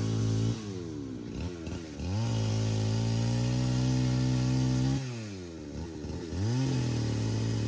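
Chainsaw engine revved up and let back to idle over and over: it drops off about half a second in, runs at full throttle again from about two to five seconds, then revs up once more near the end.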